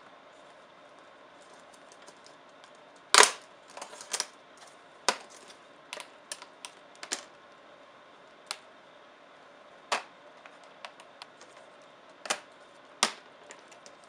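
Plastic retaining clips of an Alienware M18x R2 laptop's keyboard bezel snapping loose as the panel is pried up by hand: irregular sharp clicks and snaps, the loudest about three seconds in, with a dozen or so lighter ones scattered after.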